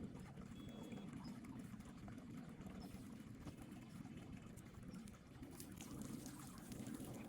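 Garden fountain water trickling steadily, faint.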